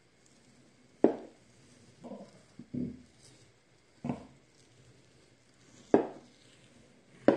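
A large kitchen knife cutting through a raw wild boar leg on a wooden cutting board: four sharp knocks as the blade strikes the board, with softer muffled handling sounds of the meat between two and three seconds in.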